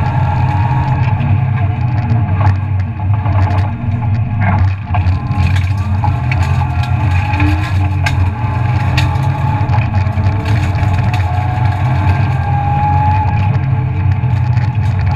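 BMW E36 323ti rally car's straight-six engine running hard under load, heard from inside the stripped cabin, its pitch rising and dropping with a short dip about four to five seconds in. Scattered sharp knocks and rattles from the car over the road.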